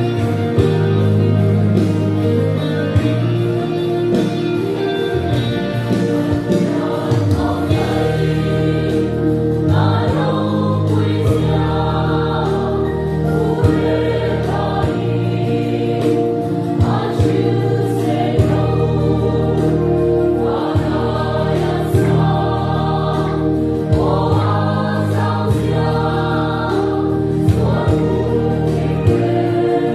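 Mixed choir of women and men singing a Mizo gospel song, over an accompaniment of sustained low bass notes that change every couple of seconds.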